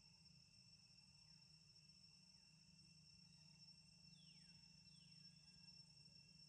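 Faint, steady high-pitched drone of insects, with two short falling chirps about four and five seconds in.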